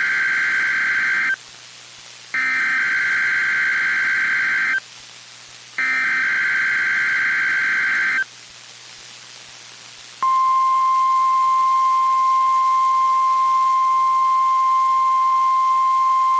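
NOAA Weather Radio Required Weekly Test signals: the end of one buzzy warbling data burst of the EAS/SAME header and then two more, each about two and a half seconds long, with hiss between them. After a couple of seconds of hiss, the steady 1050 Hz weather-radio warning alarm tone starts about ten seconds in and holds.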